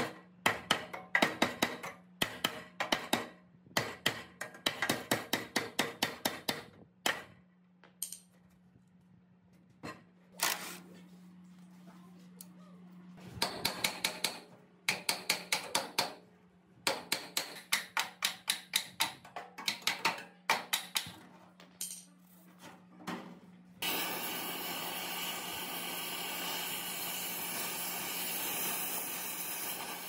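Workshop tool work on a metal machine: bursts of rapid knocks, several a second, separated by pauses, over a steady low hum. About 24 seconds in, a loud steady hiss starts and keeps going.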